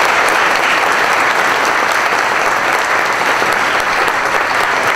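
Audience applauding steadily at the close of a talk: a dense, even patter of many hands clapping in a hall.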